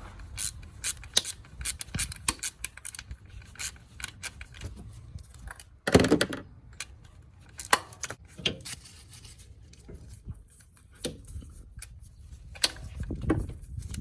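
Irregular small metallic clicks, taps and scrapes as the ignition-coil bolt is taken out by hand and the coil is handled in the engine bay, with a louder knock about six seconds in.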